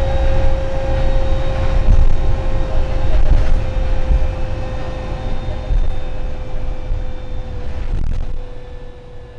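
Karosa B961 articulated city bus heard from inside the passenger cabin while driving at speed: its diesel engine and driveline run with a heavy rumble of road noise and a steady high whine. The sound grows quieter near the end.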